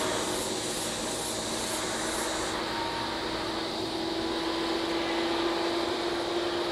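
A vehicle engine running steadily, a constant noisy hum that grows a little stronger in the second half. A high, pulsing chirr fades out about two seconds in.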